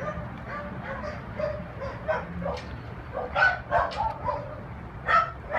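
Several dogs barking and whining in a shelter kennel. A louder run of barks comes about three and a half seconds in, and another near the end.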